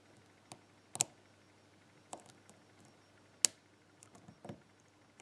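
Metal flag pick and tension wrench ticking against the pins inside a dimple lock cylinder: scattered sharp ticks, the loudest about a second in and about three and a half seconds in. The pick is probing the fifth pin, which has not yet set.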